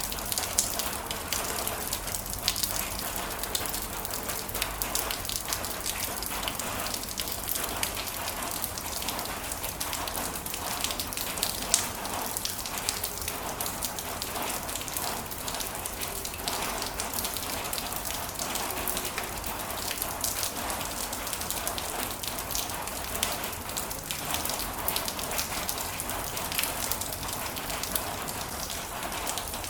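Heavy rain falling steadily, a dense hiss with many individual drops hitting sharply and close by.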